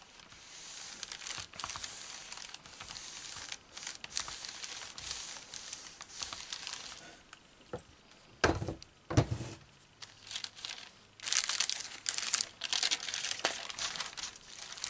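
Paper rustling and scraping under a household iron pushed back and forth over it, two dull thumps about halfway, then louder crackling and crinkling as the paper is lifted off and the heat-fused Angelina fibre sheet is handled.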